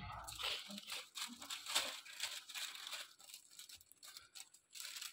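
Sheets of butter paper rustling and crinkling as they are handled and smoothed out by hand, a run of faint, irregular crackles.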